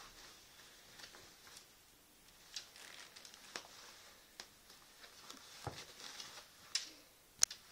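A cat rolling and pawing on a pair of swimming trunks: soft fabric rustling with scattered light clicks, and one sharp click near the end.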